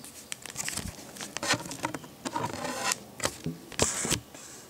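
Clear plastic sleeve of a proof coin crinkling and crackling under the fingers as it is handled, in a run of irregular crackles and small clicks.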